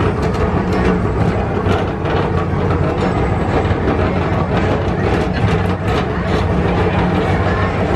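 Tomorrowland Transit Authority PeopleMover train running along its elevated track, heard from on board: a steady low rumble and hum with scattered light clicks and rattles.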